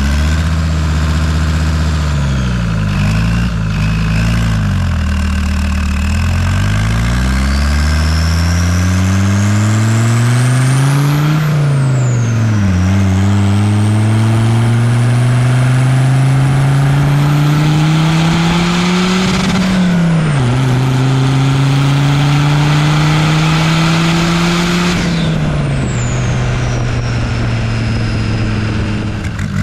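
Land Rover Defender TD5's five-cylinder turbodiesel, fitted with a large VNT race turbo and an exhaust exiting through the bonnet, accelerating hard through the gears. The engine note climbs through each gear and drops at each change, about a third of the way in, two-thirds in and again near the end, with a high whistle that rises and falls with the revs.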